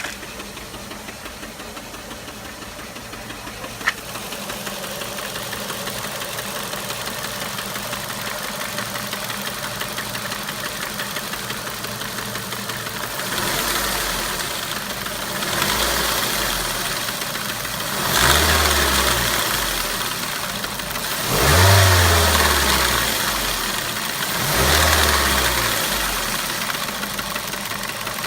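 Ford Mondeo 1.8 Duratec HE four-cylinder petrol engine idling with a knocking/tapping noise whose source the owner cannot find, with one sharp click about four seconds in. In the second half it is blipped five times, each rev rising and falling back to idle.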